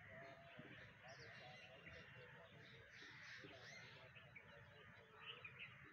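Faint background birdsong: many birds chirping and calling at once.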